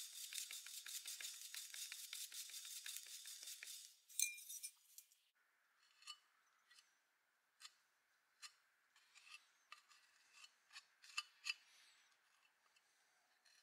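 A metal scraper blade scraping in quick strokes, about five a second, for the first four seconds. A sharp click follows. Then come faint, scattered scrapes of the blade along the edge of a cast-metal toy truck body.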